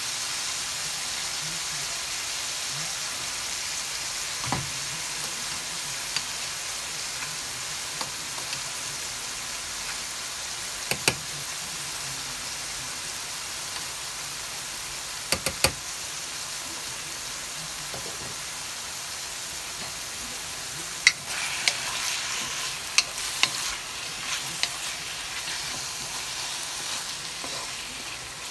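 Sliced beef sizzling steadily in a hot wok, with a few sharp pops. In the last several seconds a wooden spatula starts stirring, with quick knocks and scrapes against the wok.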